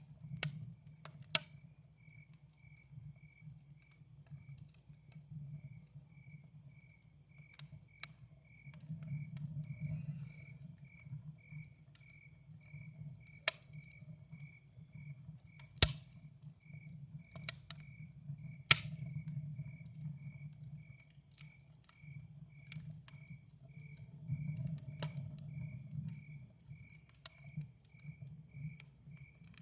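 Wood campfire crackling, with irregular sharp pops, the loudest about two-thirds of the way in, over a low steady rumble. Behind it a cricket chirps steadily at an even pace, more than once a second.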